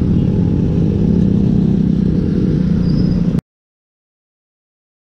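Motorcycle engine running steadily while riding at cruising speed, with a strong steady hum, heard from on board the bike. About three and a half seconds in, the sound cuts off suddenly to dead silence.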